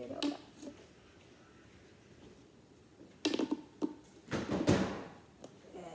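Plastic Tangle fidget toy being twisted: its curved segments click and creak at the joints. A few sharp clicks come a little over three seconds in, then a louder burst of clicking and handling noise follows.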